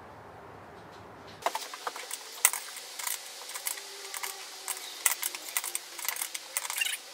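Metal spanner working a dashboard bolt: a run of irregular sharp clicks and taps starting about a second and a half in, after a low steady hum.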